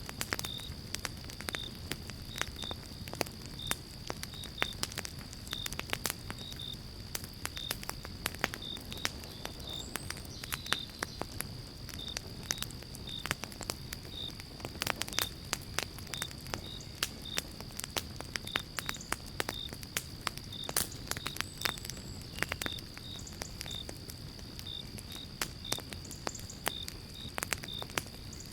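Wood fire in a fireplace crackling, with sharp pops at irregular intervals over a low, steady rumble of flame. Short high chirps repeat irregularly and a thin steady high tone runs beneath.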